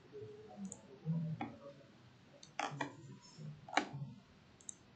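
Computer mouse clicking: a few sharp, separate clicks, a quick double click past halfway and the loudest single click about four seconds in.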